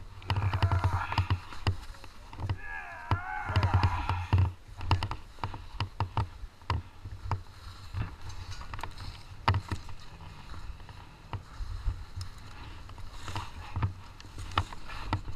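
Handling noises from a snowmobile stuck in deep snow being worked free by hand: scattered knocks, scrapes and crunching snow over a rough low rumble.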